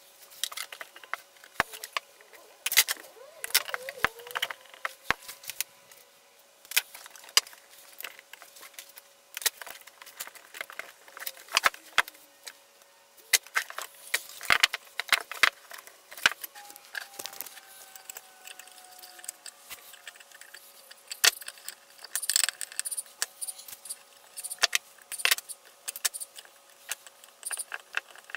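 Metal-on-metal clinking and rattling: electrical cable, wire ends and pliers knocking against a thin aluminium sheet panel and steel octagonal electrical boxes, in many sharp, irregular clicks while the cable is fed into the boxes and the wires are worked with pliers.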